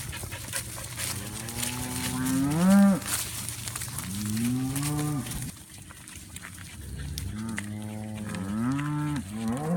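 Cattle mooing: three long moos in turn, each rising in pitch toward its end, over a lower steady moo.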